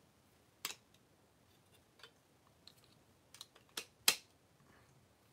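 Plastic parts of a Power Rangers Dino Fury Ptera Freeze Zord toy clicking and knocking as they are handled and fitted together: a scattering of short, sharp clicks, the loudest about four seconds in.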